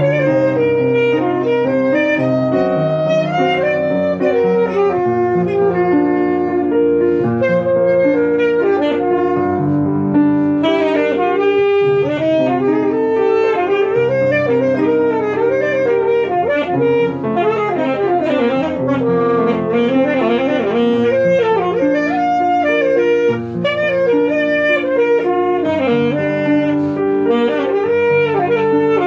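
Alto saxophone and grand piano playing a duet: the saxophone carries the melody over piano chords, with quicker winding runs in the middle.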